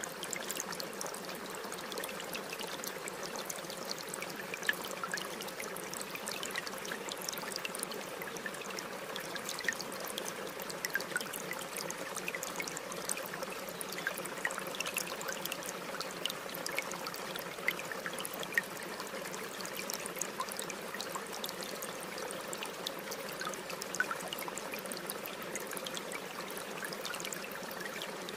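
Running water trickling steadily like a small stream, with many small splashes and drips throughout.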